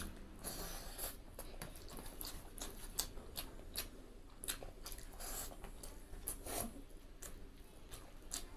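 Close-miked chewing and wet mouth smacks from eating rice and curry by hand, with many short clicks and a few longer soft squelches.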